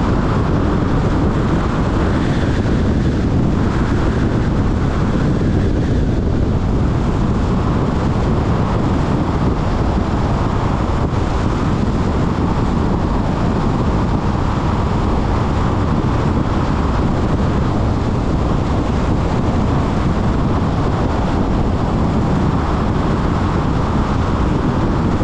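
Steady rush of tyre and wind noise from a car driving at road speed, with no changes or separate events.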